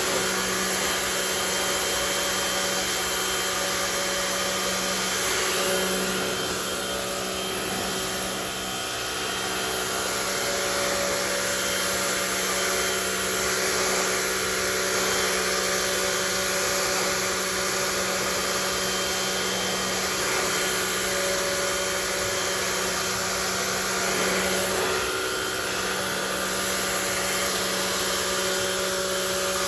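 Rock&Rocker HWY12 electric pressure washer running steadily: a constant motor hum with the hiss of the high-pressure water jet spraying concrete, dipping slightly in level once or twice.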